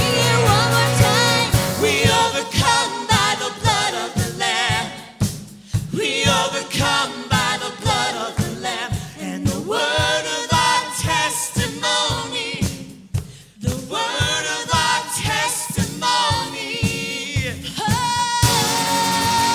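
Worship song sung by several singers with a band, over a steady beat.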